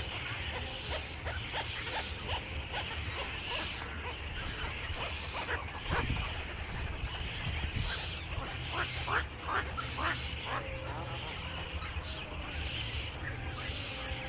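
Many small birds chirping and chattering together, with short sharp calls clustering around the middle of the stretch, over a low steady hum.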